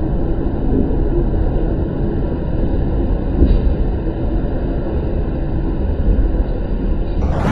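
Storm wind buffeting the microphone: a loud, steady, low rumbling roar with no let-up. About seven seconds in the sound turns brighter and fuller at a cut.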